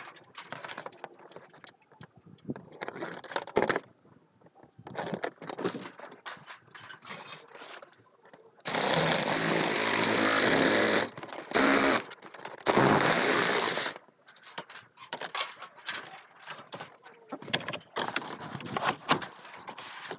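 Angle grinder cutting vinyl siding in three runs: a long cut of about two seconds starting around nine seconds in, then two shorter bursts, each with a steady high whine. Before and after, scattered knocks and rustling as the panel is handled.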